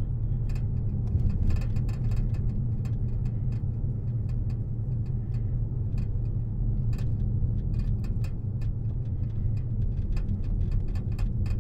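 Car cabin noise while driving slowly: a steady low engine and tyre rumble, with scattered faint irregular clicks over it.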